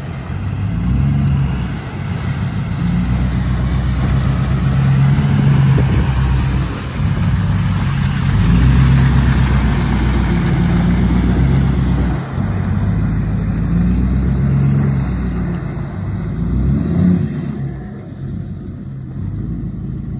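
Ford F-250's Powerstroke diesel V8 revving hard in repeated surges as the truck churns through a deep mud hole. The sound drops off sharply near the end as the truck pulls out onto dry dirt.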